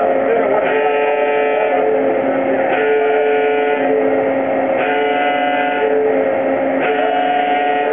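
Warning alarm on a tunnel boring machine's segment erector, a pattern of steady tones that repeats about every two seconds over constant machine noise. It sounds to keep workers clear of the hydraulic arms while a concrete lining segment is lifted and set in place.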